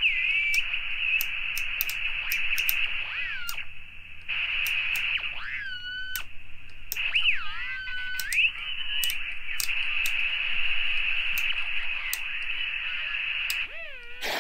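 Clansman 320 HF military radio receiver putting out band hiss through a narrow speech filter, cut off above about 3 kHz, with several whistling tones that slide up and down in pitch as signals are tuned across. The hiss drops out briefly twice, and faint clicks are scattered through it.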